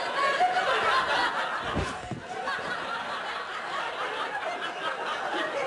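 Audience laughing, many voices at once, with a dull low thump about two seconds in; the laughter eases off a little after it.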